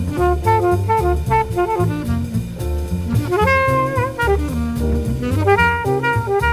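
Jazz background music: a walking bass line and drum kit under a horn-like lead melody with held, bending notes.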